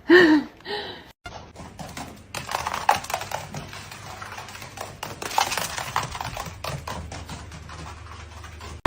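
Irregular light taps and clicks, some a little louder than others, over a faint steady background.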